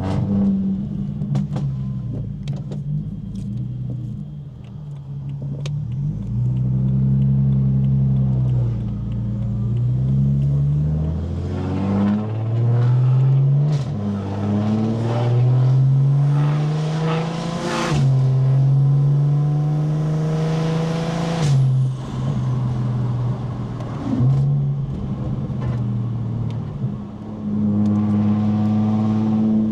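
Single-turbo BMW 335is with an N54 inline-six and dual-clutch gearbox accelerating. The engine note climbs and then drops at each quick upshift several times in a row, with a hiss of rushing air at the top of the pulls. Before and after the pulls the engine runs at a steadier pitch.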